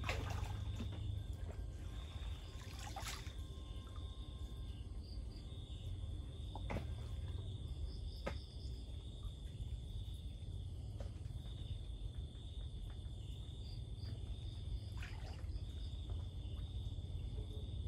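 Night insects trilling steadily at a high pitch, the trill pausing and resuming every few seconds, with water trickling and a few short splashes and knocks from wading and handling a fish trap.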